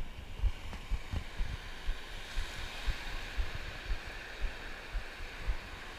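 Ocean surf washing on the beach, a steady hiss that swells about two seconds in, with wind buffeting the microphone in irregular low thumps.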